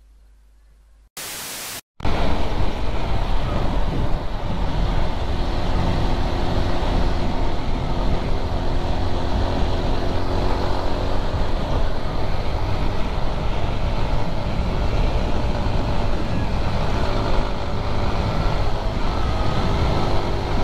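Motorcycle being ridden along a road, heard from the rider's own camera: the engine runs steadily under wind noise rushing over the microphone. It comes in about two seconds in, after a quiet first second and a short burst of noise.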